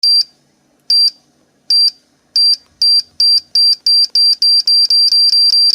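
High electronic beeps that speed up steadily, from about one a second to about four a second.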